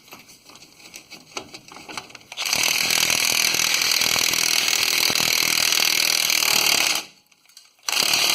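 Power cutting tool running steadily on a rusted rear U-bolt for about four and a half seconds, starting a couple of seconds in, then a short second burst near the end.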